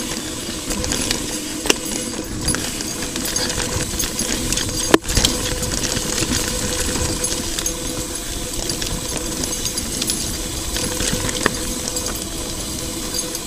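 Mountain bike rolling over a dirt trail: steady tyre and ride noise with a constant clatter of chain and frame rattle, and one sharp knock about five seconds in.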